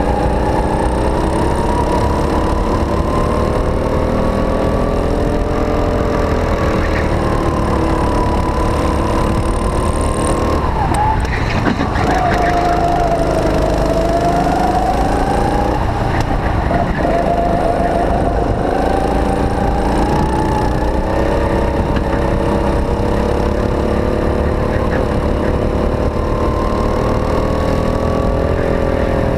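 Go-kart engine running hard at close range, its pitch rising and falling with the throttle. The pitch drops sharply about ten seconds in as the throttle is lifted for a corner, then climbs again.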